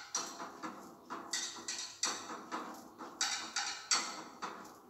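Tahitian drum music: quick, evenly spaced drum strikes, about three a second.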